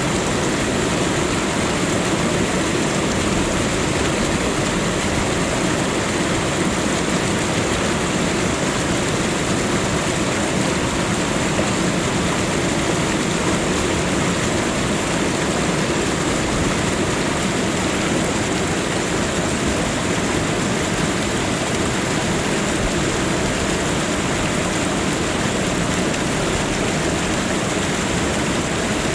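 Waterfall: a steady, unbroken rush of falling water at an even level.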